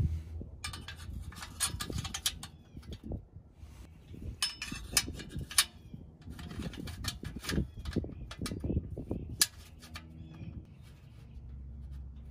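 Metal half-moon collar inserts being worked into an exhaust tip and clamp over a steel tailpipe by hand: scattered metal clicks, taps and scrapes in bursts, with one sharp click about nine and a half seconds in.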